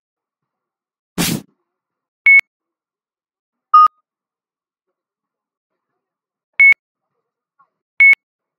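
A single crack of the rubber ball struck by a wooden beach paddle about a second in, followed by four short electronic beeps: a high one, a lower-pitched one about four seconds in, then two more high ones near the end. The beeps are louder than the paddle strike.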